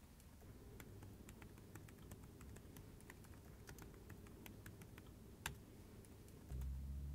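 Typing on a laptop keyboard: a quick, irregular run of light key clicks, with one sharper click about five and a half seconds in. A low hum comes in near the end.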